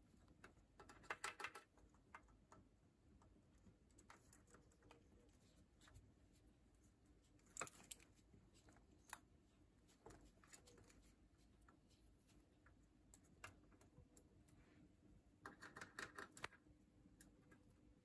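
Cockatiel pecking at food in its dish: faint, quick beak clicks and crunches in two short flurries, about a second in and near the end, with a few single clicks between.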